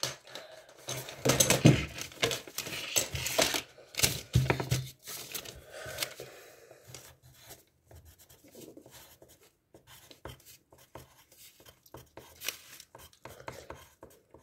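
Rustling, tearing and handling of paper close to the microphone, loudest during the first five seconds, then fainter scratches and clicks.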